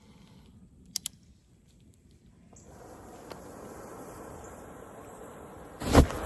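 Loose gunpowder being lit in the open with no containment: a couple of sharp clicks about a second in, then a steady hissing burn, and a loud sudden burst near the end.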